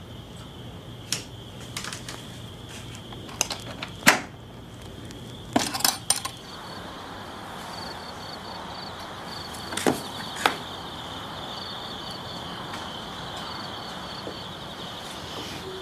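A scattering of sharp clicks and knocks with a metallic clink, the loudest about four seconds in, a quick cluster of them around six seconds and two more near ten seconds, over a steady high-pitched hum.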